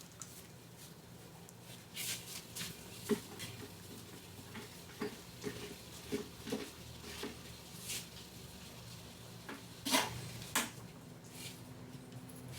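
Scattered rustles, clicks and a few sharper knocks of kitchen items being handled, over a low steady hum.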